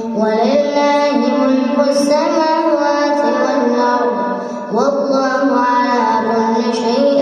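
A child's voice reciting the Quran in melodic tajweed style, holding long drawn-out notes. A new phrase begins with an upward slide just after the start and again about five seconds in.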